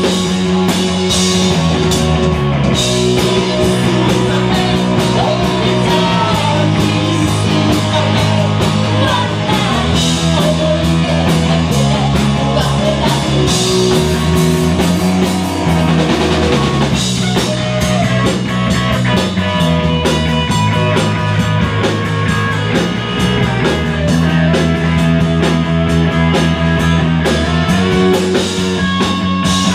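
Live rock band playing loud: electric guitars and a drum kit, with a singer at the microphone.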